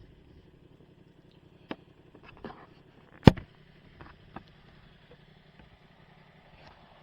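Honda Transalp motorcycle idling at a standstill, a steady low hum, with a handful of knocks and clicks close to the microphone, the loudest a sharp knock about three seconds in.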